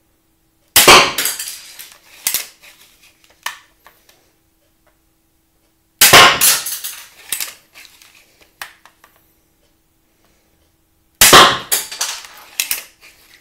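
Three shots from a 3D-printed Adderini repeating pistol crossbow, about five seconds apart. Each is a loud, sharp snap of the string releasing, followed by a few smaller clacks.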